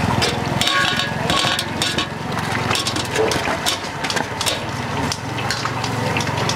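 High-pressure gas burner (bếp khè) running under a wok of tofu frying in oil: a steady low rumble with the hiss of the oil and frequent sharp crackles.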